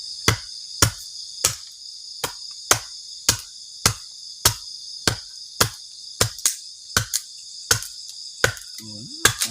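Crickets chirping in a steady chorus at night, with a series of about sixteen sharp knocks or chops over it, roughly two a second and fairly evenly spaced.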